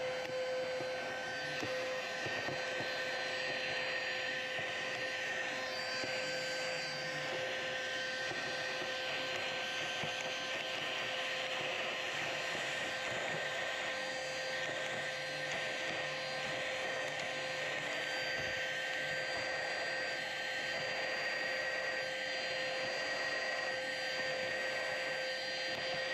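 A small electric motor pushing air runs steadily, a rushing sound with several steady whining tones in it, and cuts off at the end.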